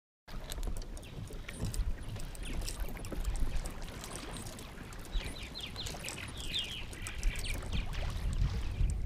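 Outdoor lake sound from a kayak: water moving against the hull over a steady low rumble, with a run of short, quick bird chirps from about five seconds in.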